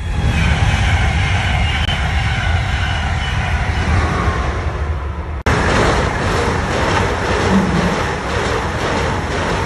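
ICE high-speed electric trains passing: first a steady low rumble with faint wheel squeal, then, after an abrupt cut about halfway through, a closer pass with a loud rushing noise.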